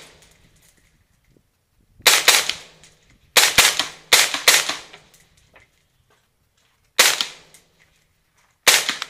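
Suppressed 5.56 mm Bushmaster ACR carbine with an AAC M4-2000 suppressor, fired semi-automatically. A quick string of shots comes from about two to four and a half seconds in, then two single shots about a second and a half apart near the end.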